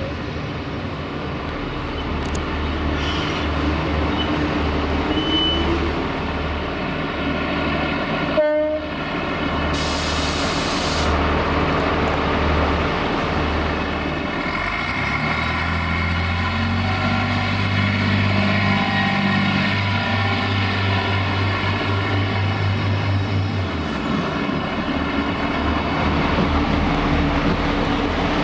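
Irish Rail diesel multiple-unit railcars running at a station: a steady low diesel engine drone with a train's mechanical hum, broken by a sudden short drop-out about eight seconds in and a brief hiss about ten seconds in.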